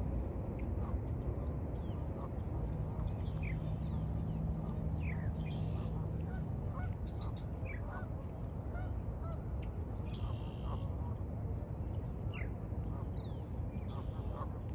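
Geese honking repeatedly in short, sharp calls, over a steady low rumble, with a few small birds calling.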